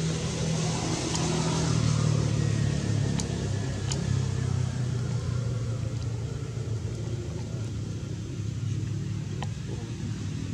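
An engine runs steadily with a low hum that swells about two seconds in and then holds, with a few faint clicks over it.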